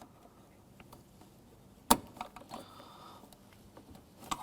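Small plastic clicks as a pick tool works the lock tab off a door-handle cable end: one sharp snap about two seconds in, a few lighter clicks, a brief faint scrape, and another click near the end.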